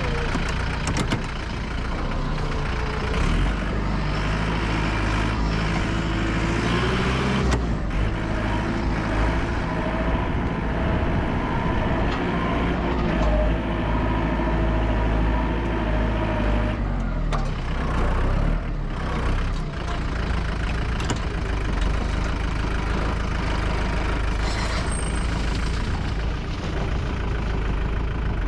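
Concrete mixer truck's diesel engine running steadily under load at the pour.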